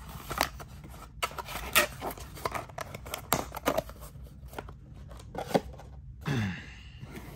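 Cardboard watch packaging being handled: flaps and box edges scraping, tapping and rubbing in a quick run of short clicks and rustles. A short low tone falls in pitch near the end.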